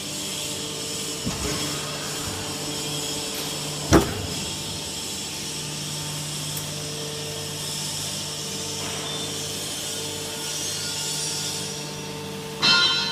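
Automatic aluminum can baler running with a steady machine hum. There is a sharp bang about four seconds in, and a louder, noisier clatter near the end.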